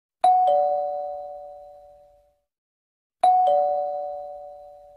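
Two-tone ding-dong chime, doorbell-like, sounding twice about three seconds apart: each time a higher note, then a lower one, ringing out and fading over about two seconds.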